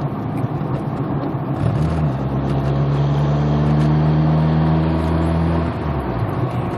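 Turbocharged 2.0-litre four-cylinder engine of a 2003 Mazdaspeed Protege, heard from inside the cabin while driving, with a steady droning hum from about two seconds in until near six seconds. The car is hesitating and misfiring under boost.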